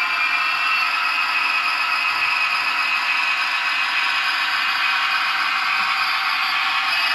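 Zimo sound decoder in a Hornby OO gauge Class 67 model locomotive playing a recorded Class 67 diesel (EMD 710 two-stroke V12) working under power, heard through the model's small speaker, which leaves the sound thin with almost no bass. A whine rises slowly in pitch as the locomotive gathers speed.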